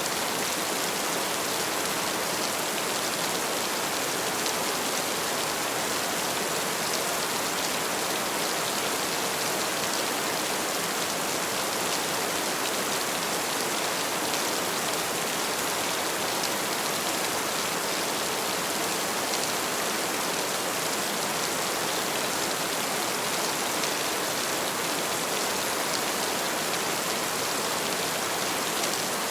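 Heavy rain falling steadily: a dense, even hiss of many drops, with fine pattering flecks and no change in strength.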